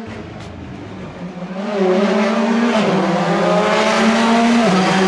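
Rally car approaching at speed, its engine at high revs. It is faint at first and grows loud about two seconds in, and the engine note drops a step twice as it nears.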